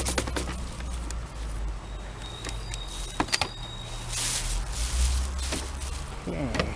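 Wind rumbling on the microphone, with scattered clicks and knocks of plastic vacuum parts being handled, two sharp clicks a little past the middle.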